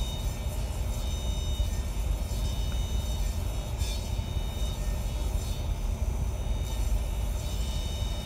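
Table saw running while a board pinned to a pivot jig is swung across the blade, cutting a half round: a steady low rumble.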